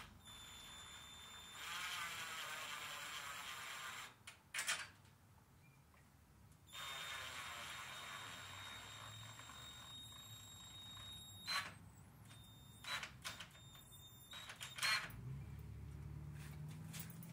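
Cordless drill running in two bursts, about two seconds and then about five seconds, driving screws into the wooden door frame. A few sharp clicks and knocks fall between and after the runs.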